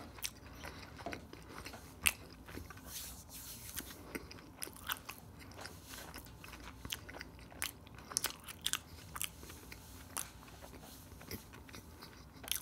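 Close-miked chewing of crunchy food: irregular crunches and wet mouth clicks, with one sharper crunch about two seconds in.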